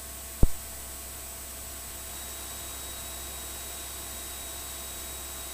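Steady hiss and faint low hum of the cockpit audio feed in a Cessna 172 in flight, with a single sharp click about half a second in.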